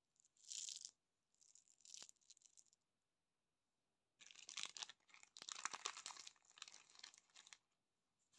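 Small hard pressed-sugar heart candies clicking and rattling against each other as they shift in a cupped hand. There is a short burst about half a second in, another around two seconds, and a longer run of quick clicks from about four seconds to seven and a half.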